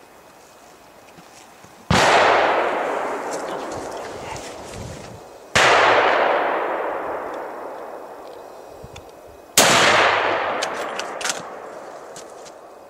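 Three gunshots about four seconds apart, each followed by a long echo rolling away through the forest.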